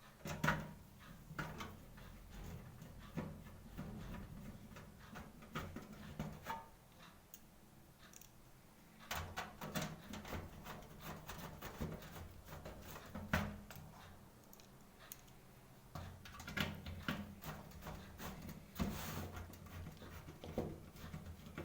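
Scattered small metallic clicks, knocks and scrapes as an SMPS power supply is handled and screwed into a desktop PC cabinet, over a low hum.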